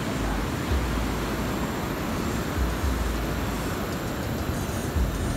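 Wind buffeting the microphone: a steady rush of noise with irregular low rumbles.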